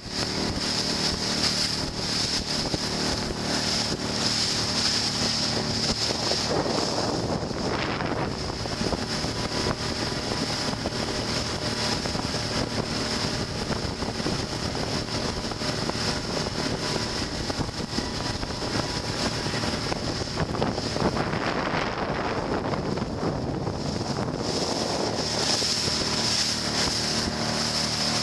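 A small open motorboat's 30 hp outboard motor running steadily at cruising speed, under the rush of water and spray along the hull. Wind buffets the microphone, swelling about a quarter of the way in and again about three quarters through.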